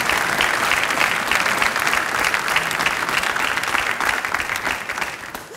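Studio audience applauding: a dense patter of many hands clapping that fades out near the end.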